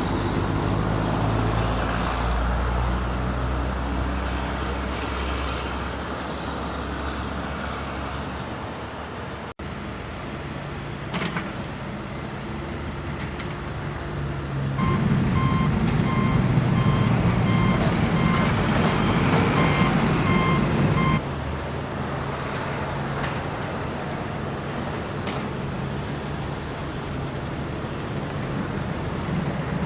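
Diesel engines of heavy construction machinery, an excavator and a dump truck, running steadily. In the middle a back-up alarm sounds a series of evenly repeated beeps for several seconds.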